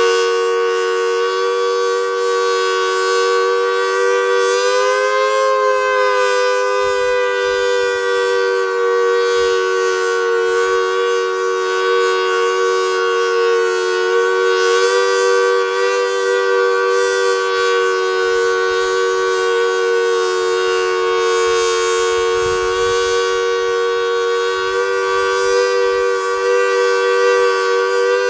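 Federal Signal Model 2T two-tone warning siren sounding a steady full-alert chord: two held tones with a brief rise and fall in pitch about five seconds in and a slight shift around fifteen seconds. The siren is an aging, ailing ('sick') unit showing its age.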